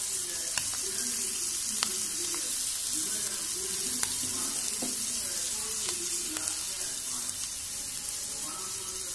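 Mutton kidney pieces with pepper frying in oil in a pan over medium heat: a steady sizzle with a few sharp ticks spread through it.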